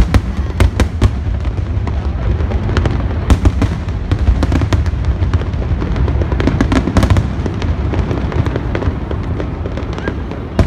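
Aerial fireworks of a large display bursting in quick succession: a dense run of sharp bangs and crackles over a continuous low rumble.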